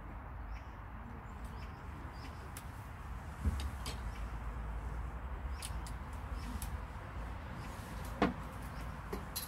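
Steady low rumble of pond-side outdoor ambience, with two short knocks from fishing gear being handled, one about three and a half seconds in and a louder one about eight seconds in, as a fish is being brought to the landing net.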